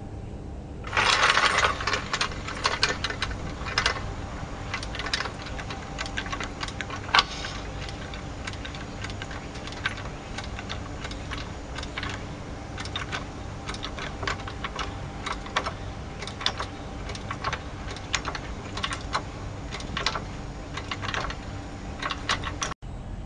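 Red hydraulic floor jack being pumped by its long handle to lift a car: irregular metallic clicks and clacks from the handle and pump, with a louder rattle about a second in.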